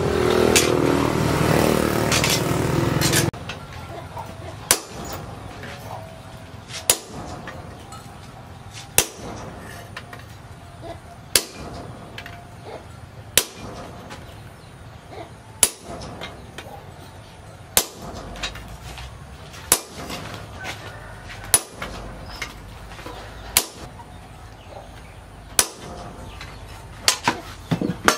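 Hand hammer striking a red-hot steel knife blade on a post anvil, single sharp blows about every two seconds. A loud rushing noise fills the first three seconds.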